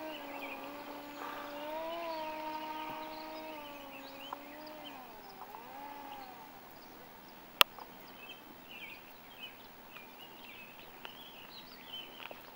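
Radio-controlled Icon A5 model seaplane's motor and propeller whining, its pitch sliding up and down and fading away over the first six seconds as it comes in to land. A single sharp click about seven and a half seconds in, then birds chirping.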